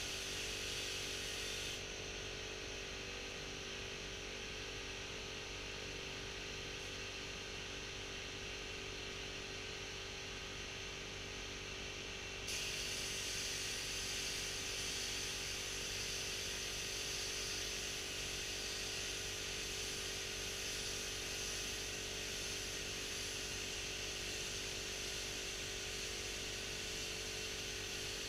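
Compressed-air gelcoat spray gun hissing over a steady machine hum. The hiss thins out about two seconds in and comes back stronger partway through.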